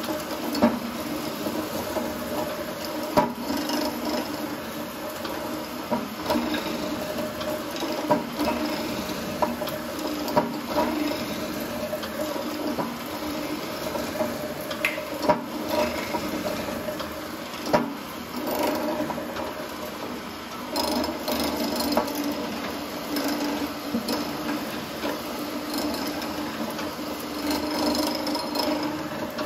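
Felder FD250 mortiser running with its square mortise chisel fitted, its chisel and bit being plunged into wood to cut a square mortise. A steady motor hum runs under the scraping of the cut, with a few sharp knocks.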